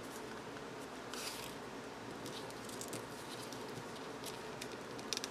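A few soft rustles of a paper envelope template being handled and slid on a table, the clearest about a second in, over a steady low background hiss.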